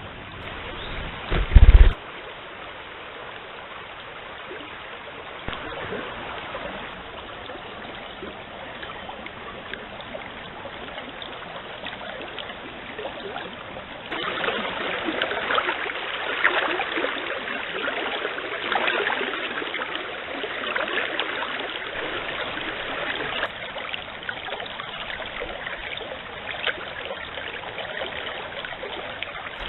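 Stream water running and trickling steadily. There is one loud low thump about two seconds in, and from about halfway through the water turns louder and splashier.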